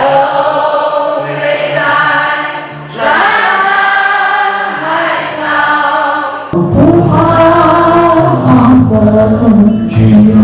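Choral music: a choir singing long held notes. About six and a half seconds in, a fuller passage starts with more weight in the lower voices.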